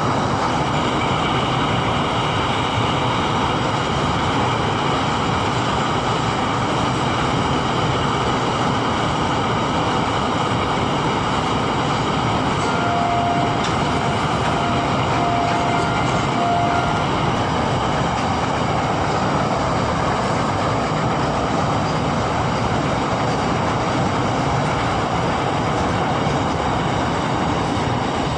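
Amrit Bharat Express passenger train running at speed, a steady, unbroken noise throughout. Near the middle a few short faint tones come and go.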